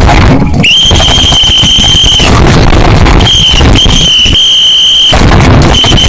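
A loud, high, steady squealing tone, held for a second or two at a time twice and then broken into short pieces near the end, over loud rough low noise.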